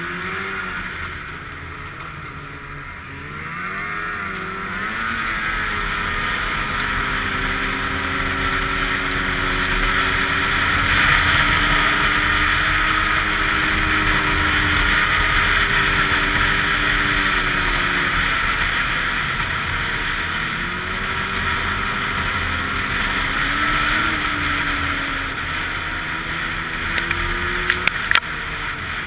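Snowmobile engine running under a rider at trail speed, its pitch rising and falling as the throttle is worked, over a steady rush of noise. It runs loudest through the middle, and a few sharp clicks come near the end.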